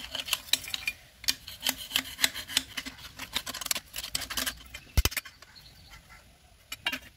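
Screwdriver scraping carbon deposits from inside a two-stroke three-wheeler's silencer pipe, a quick run of metal scrapes and clicks. A single heavy thump comes about five seconds in, and the scraping stops.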